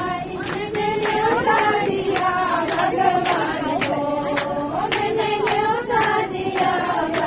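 A group of women singing a devotional song together in chorus, without instruments, with a regular beat of sharp claps keeping time.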